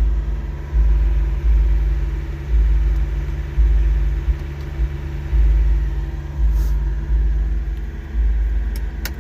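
Truck engine idling, a steady low rumble that swells and eases every second or so, with a couple of sharp clicks near the end.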